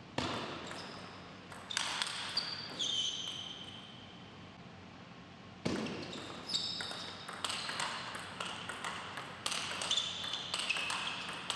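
Table tennis rally: the ball clicks sharply off the bats and the table in quick succession, with short high squeaks among the hits. There is a short run of strokes at the start and a longer, faster exchange from about halfway.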